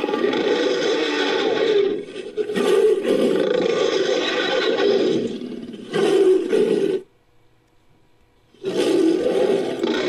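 Made-up dinosaur roars mixed from Allosaurus and Giganotosaurus roar sound effects: long low roars one after another, with a brief dip about two seconds in. The roaring stops for about a second and a half around seven seconds in, then another roar starts.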